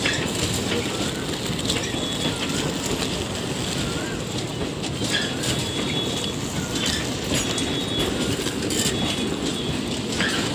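Indian Railways ICF passenger coaches rolling slowly past along a platform: a steady rumble of wheels on the rails, with brief high squeals now and then.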